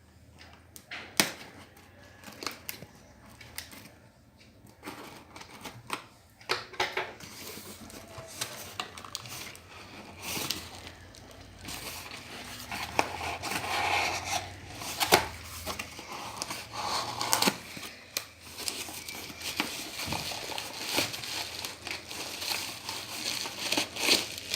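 Delivery packaging being torn open and handled: crinkling, tearing and rustling with scattered sharp clicks, busier and louder in the second half.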